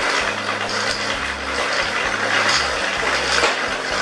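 Homemade pedal-driven gearbox of bicycle chains and sprockets being cranked, spinning three threaded-rod propeller shafts: a steady rattling whir with a light click repeating a little under once a second.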